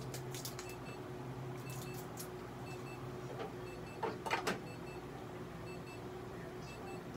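Steady hum from veterinary treatment equipment, with faint short beeps repeating about once a second and a few light clicks. A brief louder sound comes about four seconds in.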